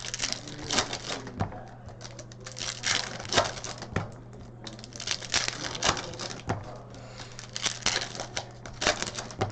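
Hockey trading cards being handled: quick, irregular snaps and swishes as cards are flipped through and stacked, several a second. A steady low hum runs underneath.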